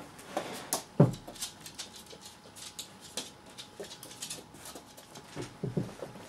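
Two cats play-fighting on a bed: scattered knocks, taps and rustling from their scuffling, with one loud thump about a second in.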